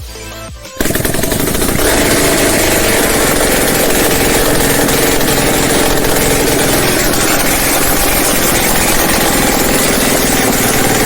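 Loud, steady, rapid mechanical rattling that starts about a second in, with background music underneath.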